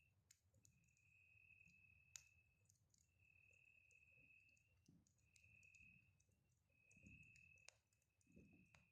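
Faint campfire crackle: scattered sharp pops and clicks of burning wood, a couple of them louder, about 2 seconds in and near the end. Beneath them a high steady tone comes and goes in stretches of about a second.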